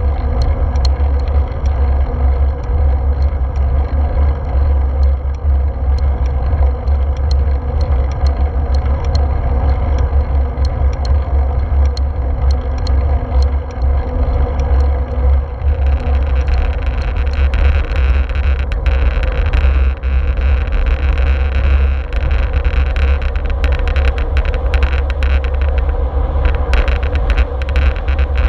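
Wind buffeting the microphone of a handlebar-mounted action camera on a moving road bike, a steady low rumble together with tyre noise on asphalt. About halfway through, a brighter hissing noise comes up and stays.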